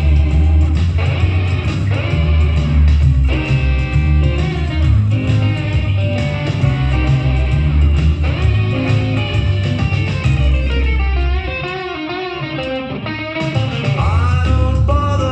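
Rockabilly song with electric guitar, played back together with an electric bass playing the bass line along with it. The low bass notes drop out for about two seconds near the end, and a bending guitar lick comes in.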